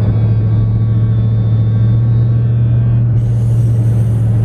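Steady low drone of a car being driven, heard from inside the cabin. About three seconds in, a brighter hiss of road or wind noise comes in suddenly.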